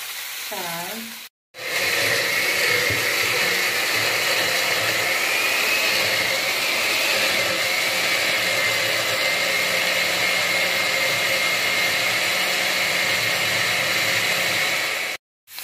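Countertop blender running steadily for about thirteen seconds, puréeing a thick sautéed vegetable base, its motor whine wavering slightly in pitch.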